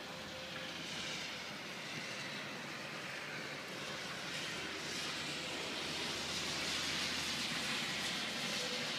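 A car passing on a rain-wet road, its tyre hiss swelling to its loudest about seven seconds in, over a steady hiss of rain.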